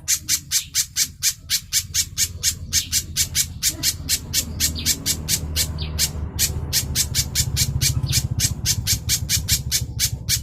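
Spiderhunter (kolibri pijantung) calling in a fast, steady series of sharp, high chips, about five a second, broken by short pauses.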